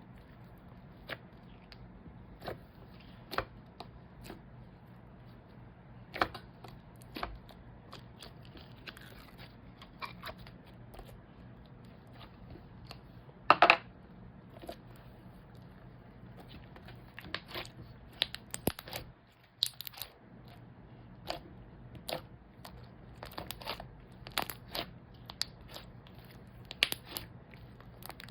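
Slime being squished and stretched by hand, giving irregular wet clicks and small pops, one louder pop about halfway through, over a faint steady hum.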